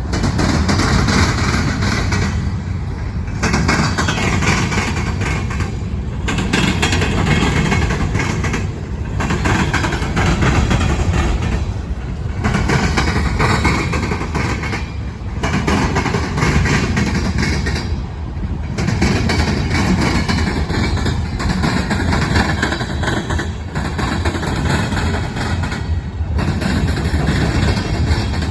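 Freight train rolling past at close range: steady, loud rumble and rail noise, with short breaks in the higher sound about every three seconds as the cars go by.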